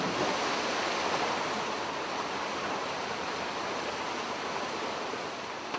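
White water of a canyon river cascading over rocks: a steady, even rush that eases slightly toward the end.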